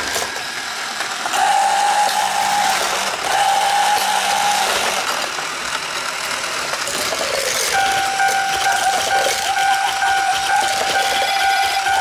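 A battery-powered Plarail toy Shinkansen whirring and rattling along plastic track. A steady high tone joins about eight seconds in.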